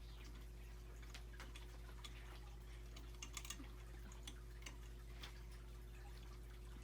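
Faint, irregular small clicks and taps of wires and plastic pin connectors being handled and pushed into a 3D printer's mainboard, with a few quick clicks about three seconds in, over a steady low hum.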